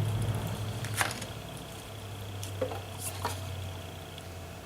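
A few sharp clicks and taps of a hex key working at the tight screws of a fiber laser head, over a steady low hum.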